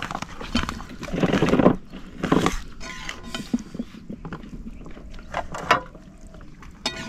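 Fingers mixing rice and curry on a steel plate: irregular wet squishing and scraping, with a few short clicks against the metal.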